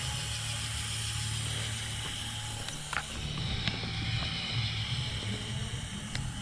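Lego RC crawler's small electric motors and plastic gears running steadily, with a faint thin whine over a low hum and a couple of light clicks, about three seconds in and near the end.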